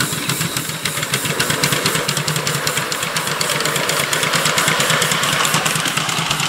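Live steam model locomotive running across a bridge: quick, even exhaust chuffs, several a second, over a steady steam hiss, getting louder as it draws near.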